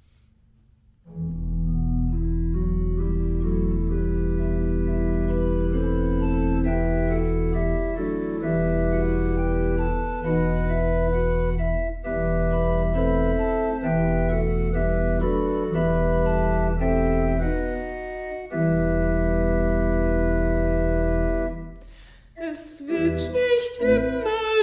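Church pipe organ playing slow sustained chords with a deep bass, phrase by phrase with short breaks between, like a hymn introduction. Near the end the organ stops and singing begins.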